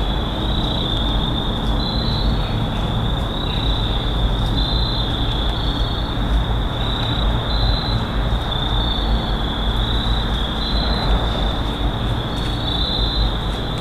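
A steady chorus of insects, a continuous high trill that steps slightly up and down in pitch every second or so, over a steady low rumbling noise.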